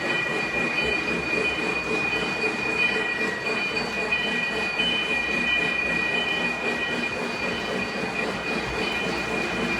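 Lionel O-gauge model train running on three-rail track: a steady rumble of wheels and motor with a steady high-pitched whine over it.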